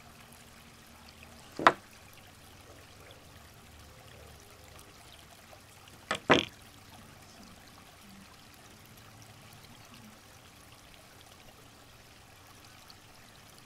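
Two sharp clicks, one about two seconds in and a quick double one about six seconds in, over a faint steady hiss like trickling water.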